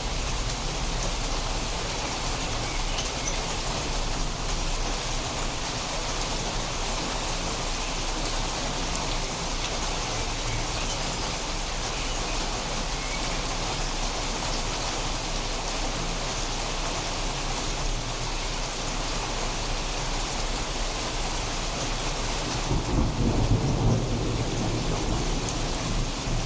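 Steady rain falling during a thunderstorm. Near the end, a low rumble of thunder builds up under the rain.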